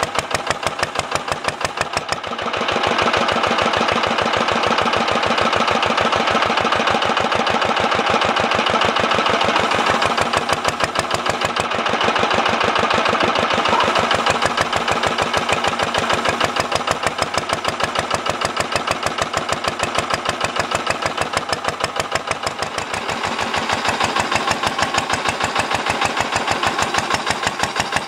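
Lister LR1 single-cylinder air-cooled diesel stationary engine running with a steady, rapid beat. It grows louder about two seconds in. The engine is a seized-up shed find, now freed and running again.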